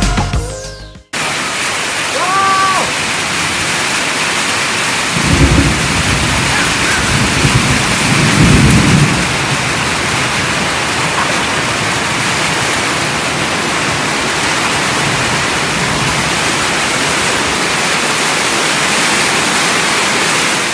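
Heavy rain falling steadily after music cuts off about a second in. Two short low rumbles come in the middle.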